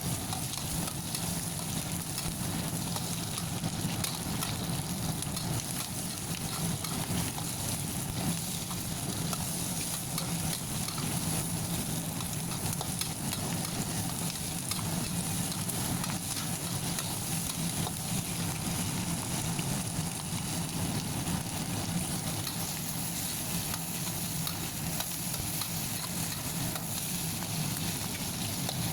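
Food frying in hot oil in a pan, a steady crackling sizzle, with a utensil stirring it.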